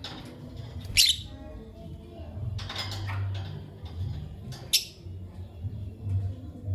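Lovebirds chirping: two sharp, shrill calls about three and a half seconds apart, with softer chirps between them.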